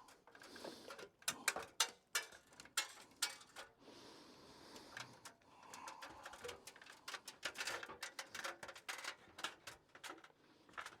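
Irregular light clicks, knocks and scrapes of parts and tools being handled, with no steady rhythm.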